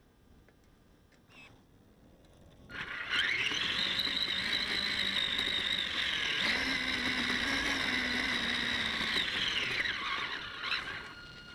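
Electric RC car's motor and gear drive whining as the car drives: the pitch rises as it speeds up about three seconds in, holds steady and high, then falls away as it slows near the end.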